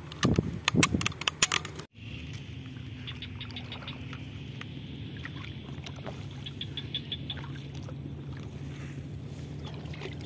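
A quick run of sharp knocks and clicks for the first two seconds, then a sudden cut to a steady low hum with faint runs of high ticking chirps over open swamp.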